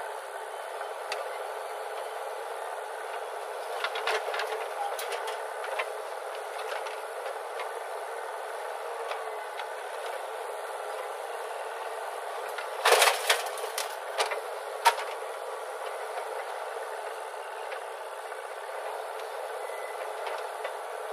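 JCB 3DX backhoe loader working soil: steady machine running noise with clattering knocks from the bucket and soil, the loudest a burst of clatter about two-thirds through.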